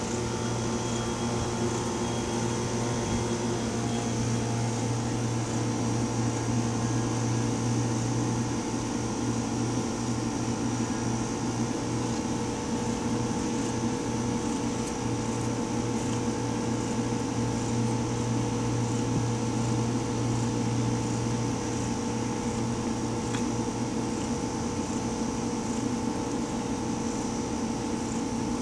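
A steady mechanical hum with an airy hiss, like a running fan motor.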